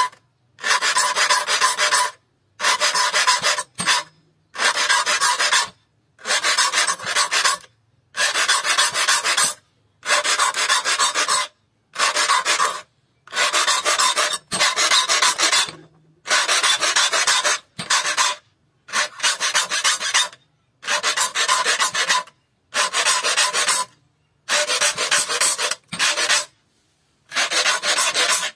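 Saw file rasping across the steel teeth of a hand saw held in a saw vise, in steady strokes of about a second each with short pauses between: the saw's teeth being sharpened one gullet at a time.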